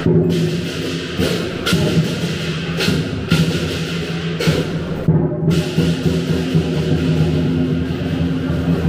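Chinese lion dance percussion: a large drum beaten continuously, with several sharp cymbal crashes over it.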